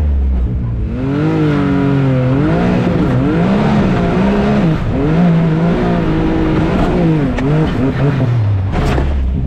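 Can-Am Maverick X3's turbocharged three-cylinder engine revving hard up and down in repeated throttle bursts as the side-by-side attacks a steep climb, with a sharp knock near the end.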